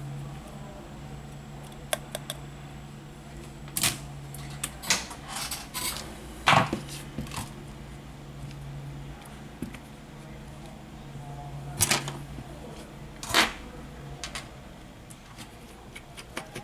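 Irregular sharp clicks and knocks as a Samsung Galaxy S10+ and its heavy, ceramic-like back cover are handled and set down on a rubber repair mat, about half a dozen louder knocks among them, over a steady low hum.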